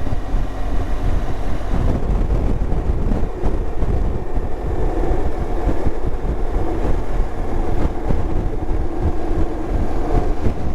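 A BMW R1200GSA boxer-twin motorcycle riding at a steady speed, heard as wind rushing over the helmet microphone with engine and road noise underneath.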